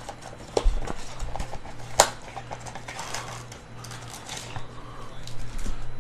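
Trading-card packs and cards being handled: light rustling and scattered clicks, with one sharp snap about two seconds in. A steady low hum runs underneath.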